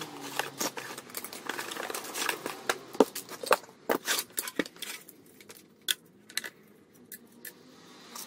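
Irregular clicks, knocks and light rattles of metal parts and tools being handled on a workbench while a cut-off saw's motor housing is reassembled. They come thick and fast for about five seconds, then turn sparse.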